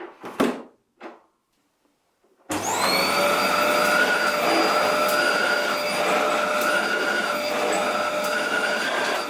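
Two brief knocks, then, about two and a half seconds in, the Inventor Epic MC78 bagless cylinder vacuum cleaner is switched on: its motor starts abruptly with a rising whine as it spins up, then runs steadily.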